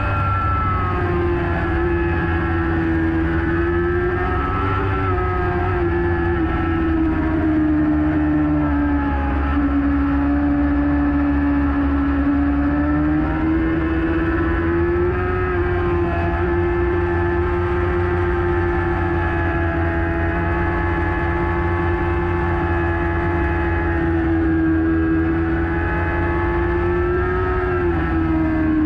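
Racing motorcycle engine held at high revs under load, its pitch sagging and climbing back twice, over steady wind rumble on the bike-mounted camera.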